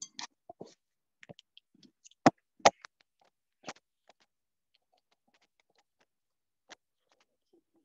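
Scattered light clicks and taps from handling a computer and headphones while switching audio playback from headphones to speakers. Two sharper clicks come close together about two and a half seconds in, then a few faint ones.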